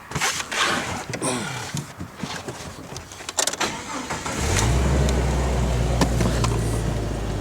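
A few knocks and rustles, then about four and a half seconds in a Jeep engine starts and settles into a steady idle.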